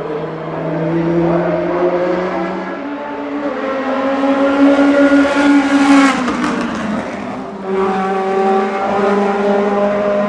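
DTM race car engines at full throttle: the pitch climbs steadily and is loudest as a car passes about six seconds in, then drops away, and another engine sound rises just under two seconds later.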